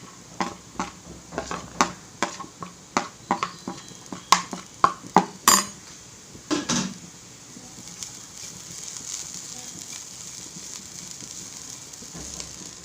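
A spoon knocking and scraping against a frying pan while stirring, a quick run of clinks over the first six or seven seconds, then onion masala sizzling steadily in the pan.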